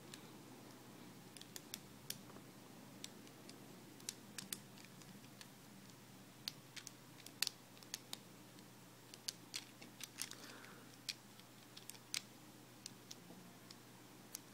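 Plastic pieces of a 4x4x6 twisty puzzle being handled and snapped into place: a scatter of small, irregular clicks and taps.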